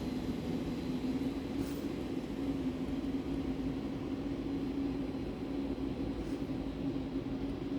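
Steady mechanical hum of an apartment building's elevator area, with one low droning tone held evenly throughout.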